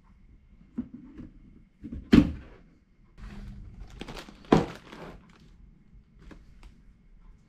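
Cardboard kit box being opened and handled: a light knock, then two loud thuds about two seconds and four and a half seconds in, with cardboard rustling between them and two light taps near the end.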